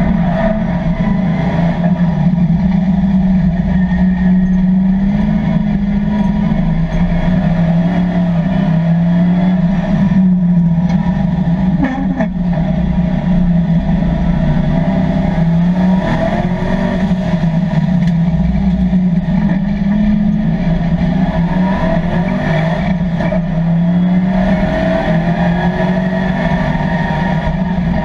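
LS3 V8 in a third-generation Chevrolet Camaro race car, heard from inside the cabin while racing: the engine's pitch climbs under full throttle and drops back again and again as the driver shifts and lifts for corners.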